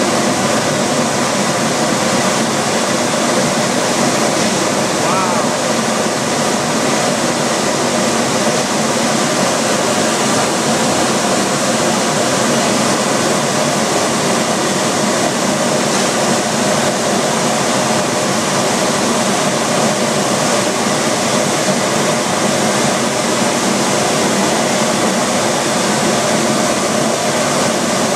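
Steam locomotive boiler blowdown: steam and water blasting out of the blowdown valve at the bottom of the boiler in a loud, steady rush, which cuts off suddenly at the very end. It is the sound of sediment-laden water being cleared out of the bottom of the boiler.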